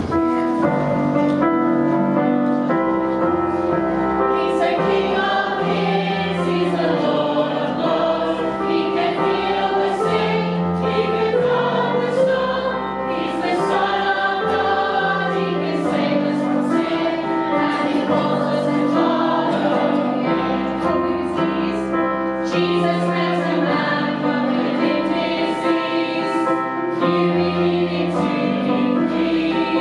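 Music: a group of voices singing a song over a steady beat and bass line.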